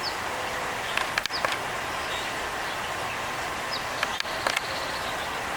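Steady outdoor background noise, with two brief clusters of sharp clicks about a second in and again about four seconds in, and a few short high bird chirps that drop slightly in pitch.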